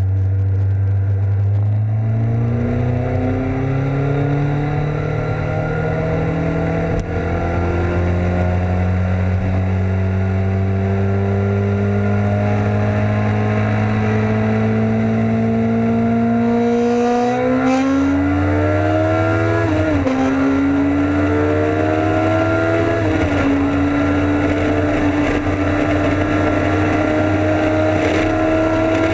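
Suzuki Hayabusa inline-four engine pulling hard under full acceleration, its pitch climbing slowly for about seventeen seconds, then rising faster before dipping sharply around twenty seconds and stepping down again a few seconds later as it shifts up, then holding steady near top speed. Heavy wind buffeting on the microphone from a strong headwind runs underneath.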